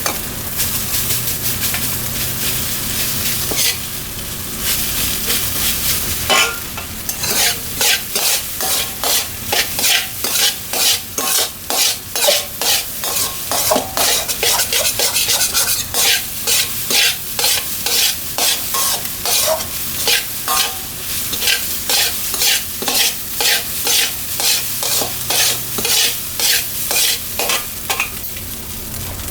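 Fried rice sizzling in a hot wok, stirred with a metal spatula. After about six seconds of steady sizzling, the spatula starts scraping and tossing in quick regular strokes, about two a second.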